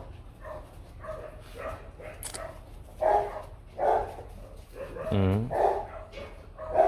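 Vietnamese H'mong bobtail dogs barking in play, several loud barks from about three seconds in, with one drawn-out cry about five seconds in that falls steeply in pitch.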